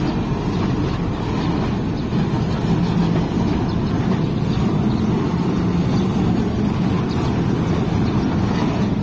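Freight train of container flat wagons and open gondola wagons rolling past: a steady low rumble of wheels on rail.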